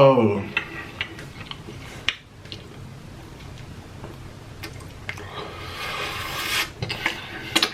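A person chewing food, with small wet mouth clicks. A longer rustling, rubbing noise comes about five seconds in.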